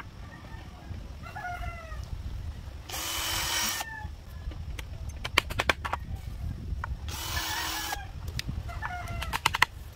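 A cordless drill runs twice into bamboo slats, about a second each time. A quick series of sharp clicks follows each run. Chickens cluck in between.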